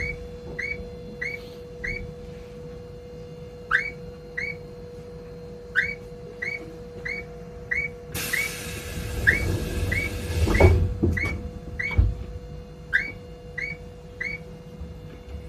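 Electronic bird-call chirps of a Japanese audible pedestrian crossing signal, repeating about every half second in runs, over a steady hum. A brief burst of hissing noise comes about eight seconds in.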